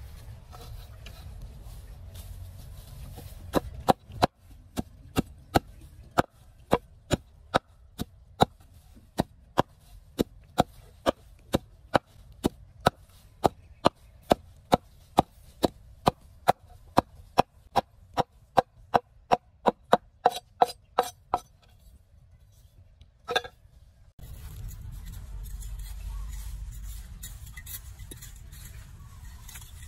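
Meat cleaver chopping leafy green plants on a wooden board, a steady run of sharp strikes a little over two a second that stops about three quarters of the way through, with one last strike a moment later.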